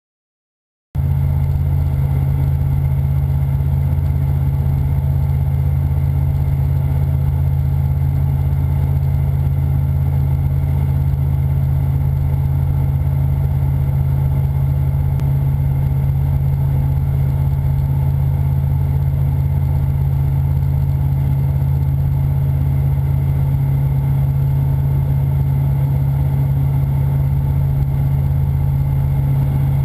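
Gobosh AT-4 light sport aircraft's Rotax 912 four-cylinder engine and propeller running at steady power, a loud low drone in the cockpit that starts about a second in.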